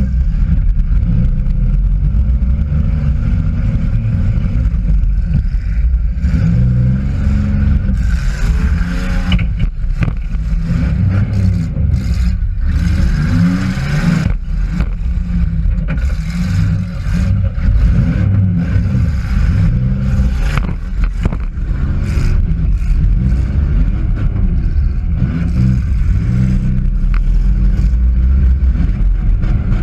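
Demolition derby car's engine revving up and down, heard from inside the cabin. Several bangs and scraping metal are heard through the middle.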